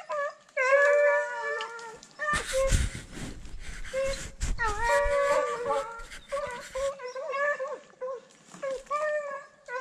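Deer-hunting hounds baying in long drawn-out howls, one call after another, the dogs working a deer. About two seconds in, a rough rushing noise on the microphone joins them for several seconds.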